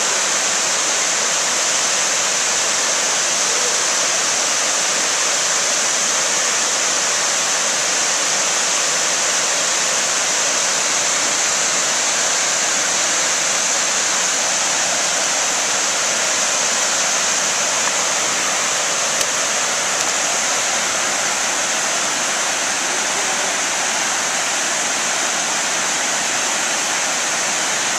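Steady rush of river water flowing below a dam, an even hiss that does not change.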